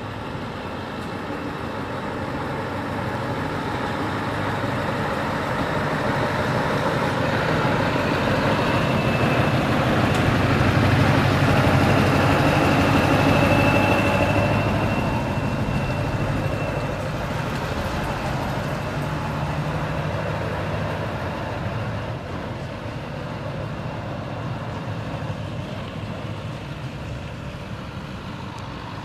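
Scania R500 V8 diesel truck with a three-way exhaust driving past, its V8 engine sound growing louder as it approaches, loudest about halfway through, then fading as it pulls away. A thin high whine is heard while it is closest.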